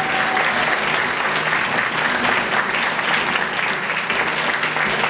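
Theatre audience and performers applauding: steady, dense clapping.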